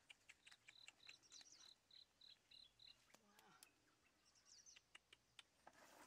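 Faint outdoor ambience: a run of about nine short, high call notes, roughly three a second, that stops about three seconds in, with a few brief chirps. Light clicks and wet sounds of hands working in shallow muddy water run underneath.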